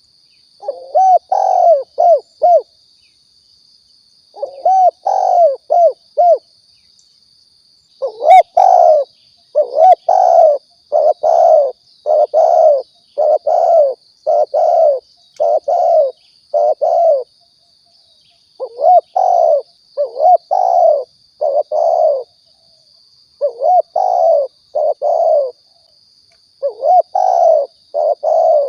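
Spotted dove (tekukur) cooing: short phrases of three or four coos repeated over and over with brief pauses, the call used to lure the birds in for trapping or shooting. A faint steady high-pitched tone runs underneath.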